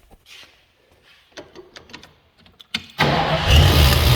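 1976 Ford Bronco's V8 engine starting abruptly about three seconds in and running on steadily, after a few faint clicks. The engine is fed from a small jug of gas with the tank removed, and is being restarted after years in storage.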